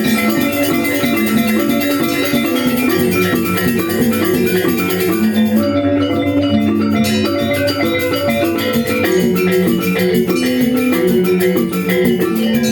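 Balinese gamelan angklung ensemble playing: bronze metallophones ringing in fast, dense interlocking note patterns over a sustained low tone.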